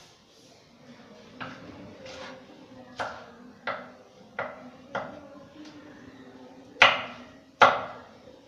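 Chef's knife cutting a red capsicum on a chopping board: separate sharp strikes about one every half second to a second, the last two near the end the loudest.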